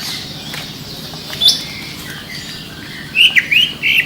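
Cucak ijo (green leafbird) singing: one sharp chirp about a third of the way in, then near the end a fast run of short, bending notes.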